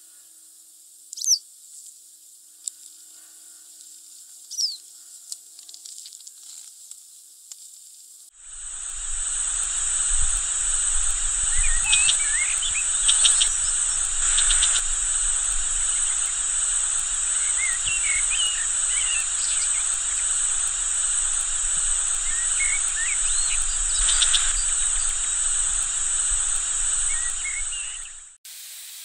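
A few short, high bird calls from a wagtail. Then, about eight seconds in, a loud steady chirring of insects such as crickets begins, with short bird calls from a red-backed shrike scattered over it. The insect sound cuts off near the end.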